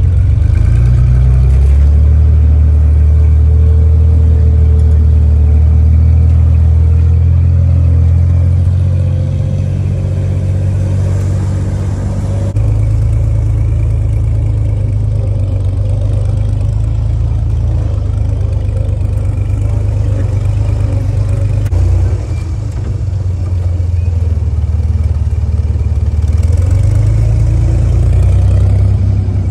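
Engine of a 1944 Willys jeep, a four-cylinder flathead, running under load as it crawls a rutted dirt trail, heard from on board as a loud, steady low drone. Its tone changes abruptly partway through and dips briefly later on.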